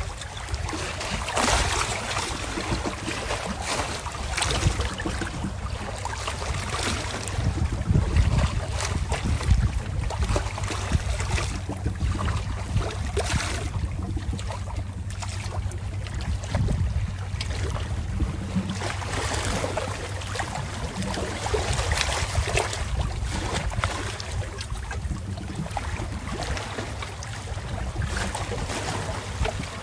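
Sea waves washing in, the noise swelling and ebbing every few seconds over a steady low rumble.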